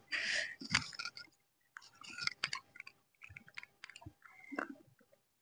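Faint chewing of fried chicken pakodi: scattered soft crunches and wet mouth clicks.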